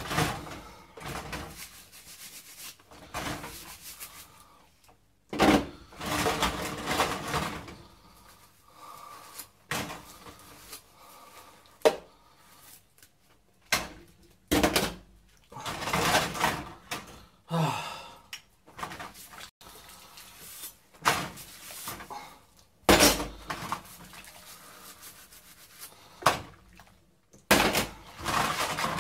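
Kitchen crockery and cupboards being handled: irregular knocks and clatters of dishes, with quieter gaps between the bursts.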